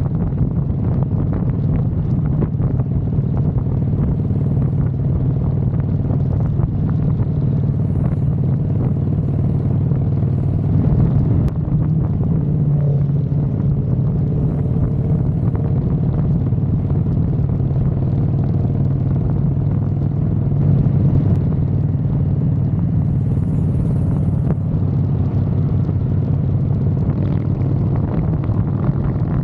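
Harley-Davidson Fat Boy's V-twin engine running steadily at cruising speed, heard from a camera mounted on the bike.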